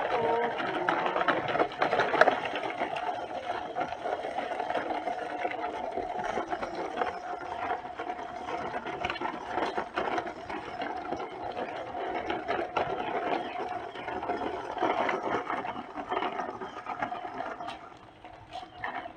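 A toy construction vehicle's small electric motor and plastic gearbox running steadily with a constant whine and rattling, with scattered clicks.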